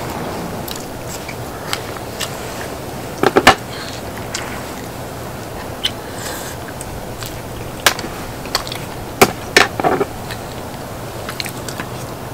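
A person eating spicy braised chicken at close range: chewing and biting, with a few sharp clicks and taps scattered through, a cluster of them about three seconds in and more near the end, over a steady low hiss.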